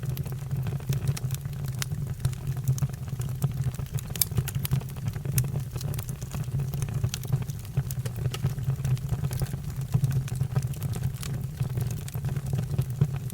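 Fire crackling, with frequent irregular sharp pops and snaps over a steady low rumble.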